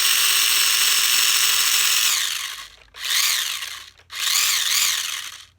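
Remote-control car's motor run at full throttle with a steady high-pitched whine, winding down after about two seconds. It is then revved twice more in short bursts that rise and fall in pitch.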